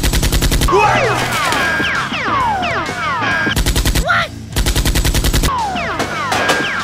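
Bursts of rapid automatic gunfire sound effects, about ten shots a second, with falling whistling whines between the bursts, over background music.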